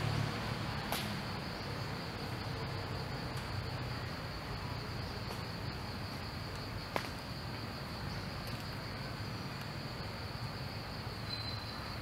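Steady, high-pitched drone of insects in forest ambience, with two short sharp clicks, one about a second in and a louder one about seven seconds in.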